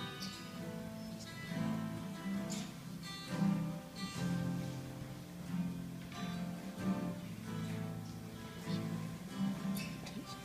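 Acoustic guitar strumming chords at an even pace, with no voice over it.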